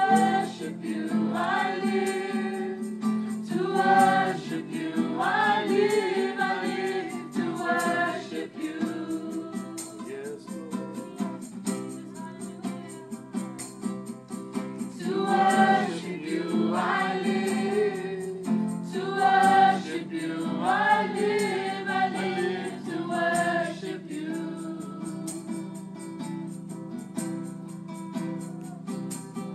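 Small group of voices singing a worship song together, with an acoustic guitar strummed and a tambourine shaken along. The singing comes in two long sung passages, with quieter stretches of soft singing and guitar between them and near the end.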